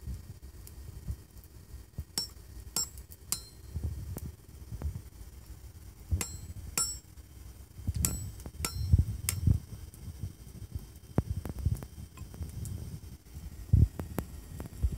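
Hand hammer striking a red-hot steel cleaver blade on a small block anvil: irregularly spaced blows, several of them with a short high metallic ring. A low thump comes near the end.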